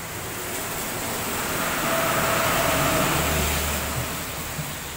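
A truck and then a car drive past on a wet road. Tyres hiss on the wet asphalt with a low engine hum, swelling to a peak about halfway through and then fading away.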